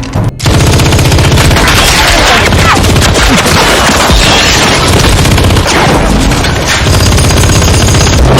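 Sustained automatic gunfire from a film gunfight, many rounds in quick succession with no pause. It starts after a brief break just after the opening.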